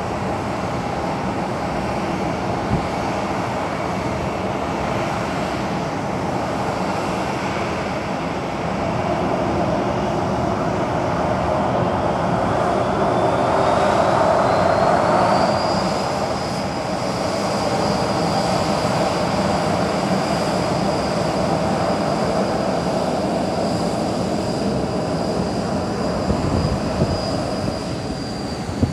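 Boeing 737-800 jet airliner's turbine whine over a steady rushing noise. The whine rises in pitch about halfway through, then holds level.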